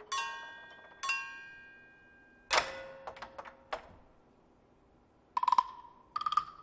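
Chinese percussion playing sparse single strokes. Two struck metallic notes about a second apart each ring out in several pitches. A louder strike with a lower ring follows, then a few light taps, and from about five and a half seconds a run of sharp knocks.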